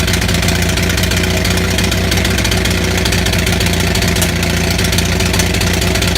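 Onan 6.5 kW gasoline generator engine running without a muffler, firing raggedly with a slightly louder pop about four seconds in: a misfire caused by severely fouled spark plugs.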